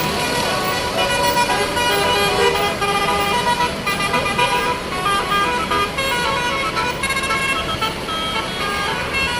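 Indonesian telolet bus horn playing a melody: a set of air-horn trumpets sounding short notes that step up and down in pitch in quick succession.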